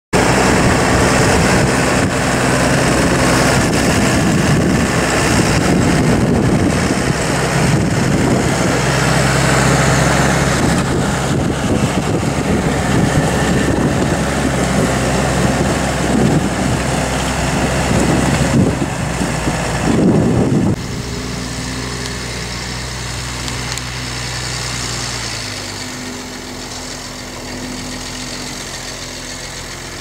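New Holland tractor's diesel engine working under load as it pulls a reversible plough, loud and rough. About two-thirds of the way through, the sound drops suddenly to a quieter, steadier engine hum at lower revs.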